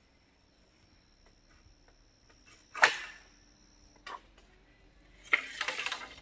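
Bamboo poles knocking and clattering as they are handled on a bamboo footbridge. A sharp knock comes about three seconds in, a lighter one a second later, and a short rattling clatter comes near the end.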